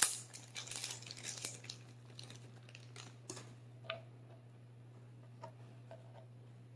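Cut cherry tomatoes scraped off a plastic cutting board into a bowl: rustling and scraping for about two seconds, then a few light taps and clicks, over a steady low hum.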